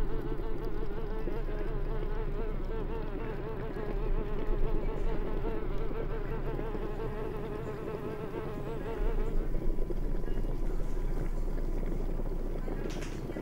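A fly buzzing continuously, its pitch wavering up and down as it moves about, growing fainter after about nine seconds.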